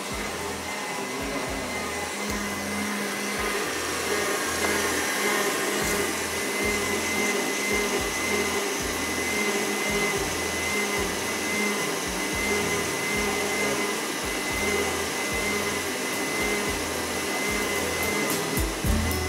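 Electric stand mixer running steadily at speed, its wire whisk whipping cream in a stainless steel bowl.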